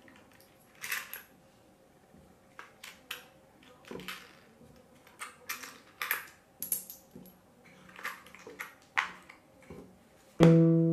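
Brazilian one-real coins set down one by one on a cloth-covered table, a scattered series of light, sharp clicks. Near the end a plucked guitar note rings out and slowly fades.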